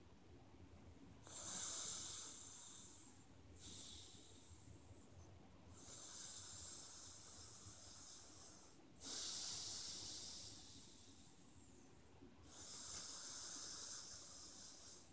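A man breathing slowly and deeply close to the microphone: about five long, hissing breaths in and out, each lasting two to three seconds.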